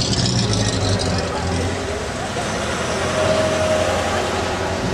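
Engine of a vintage open touring car running at low speed as it drives slowly past, a steady low hum.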